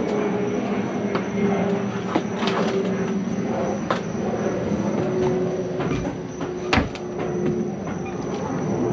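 A steady mechanical hum, a low drone with a faint high whine over it, with scattered knocks and clatters; one sharp knock about seven seconds in stands out.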